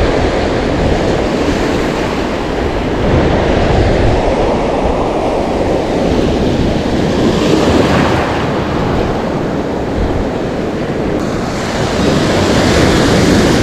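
Ocean surf breaking and washing up the beach around the wader, a loud continuous rush that swells about eight seconds in and again near the end, with wind rumbling on the microphone.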